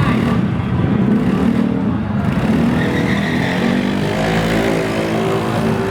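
Racing Yamaha X-Max maxi-scooter engines running hard on a drag strip, their pitch climbing over the last couple of seconds.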